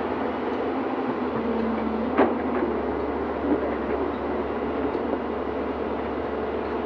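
Excavator's diesel engine running steadily while working, with a sharp clank about two seconds in and a lighter one a little over a second later.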